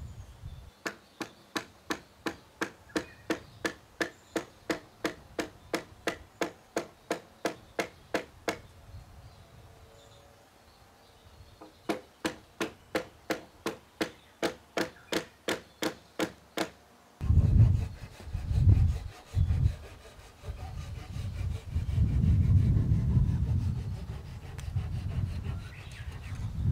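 Hand woodworking on a timber beam: a long run of even, sharp wooden clicks about three a second, broken by a short pause, then rough rubbing and sawing strokes on the wood.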